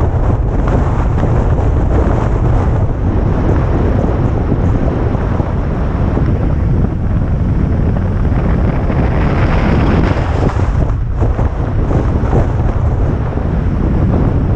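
Wind buffeting the microphone of a camera on a vehicle driving down a mountain road: a loud, steady low rumble, with a brief brighter hiss swelling about nine seconds in.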